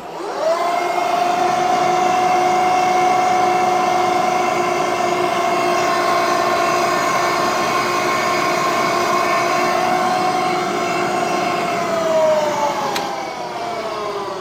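Vertical milling machine's 3 hp spindle motor switched on: it whines up to speed within half a second and runs at a steady pitch. About twelve seconds in it is switched off and winds down with a falling whine, and there is a single sharp click about a second later.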